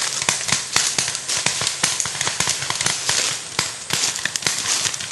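Rapid, irregular sharp pops and cracks, several a second, mixed with rustling through grass and brush: paintball markers firing during a skirmish in undergrowth.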